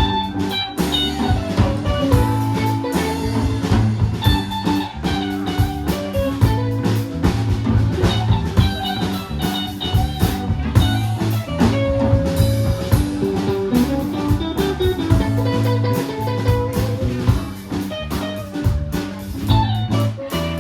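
A live blues band playing an instrumental passage: electric guitar over bass and a drum kit, at a steady loud level.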